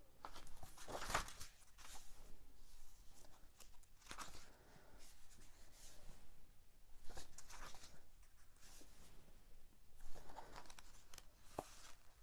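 Pages and paper of a hardback book being turned and handled: faint paper rustles every few seconds, with a light tap near the end.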